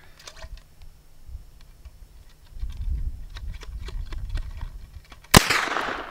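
A single black-powder muzzleloading rifle shot: one sharp crack about five seconds in, followed by a fading tail of echo.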